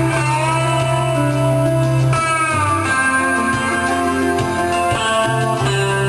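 Guitar instrumental music, with melody notes held over a sustained low bass note and a couple of notes bending in pitch about two seconds in.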